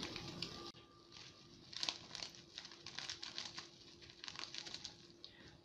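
Plastic spice packet crinkling faintly as it is handled and tipped to pour, a run of small irregular rustles that thickens about two seconds in.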